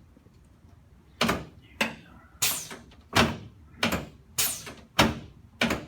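A rapid series of chiropractic adjusting thrusts on the shoulder joints, clavicles and rib-to-sternum joints of a patient lying face up. There are about eight sharp thumps, one every half second or so, starting about a second in, each dying away quickly.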